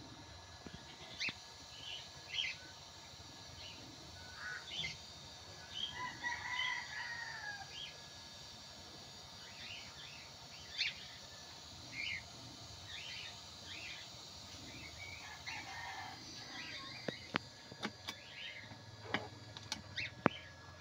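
Chickens clucking and chirping in scattered short calls, with a rooster crowing once about six seconds in, lasting about a second and a half. A few sharp clicks near the end.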